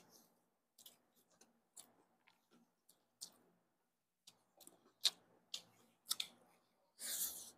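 Chewing and eating mouthfuls of chicken biryani rice by hand: scattered soft wet smacks and clicks of mouth and fingers, with a brief louder rush of noise near the end.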